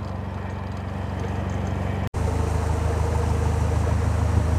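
Narrowboat's diesel engine running steadily, with a brief break about two seconds in, after which it is a little louder.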